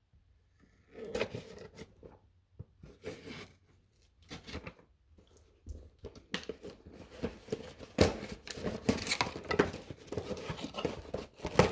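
Shipping box being torn open by hand: ripping and crinkling of packaging in irregular bursts, growing busier and louder from about six seconds in.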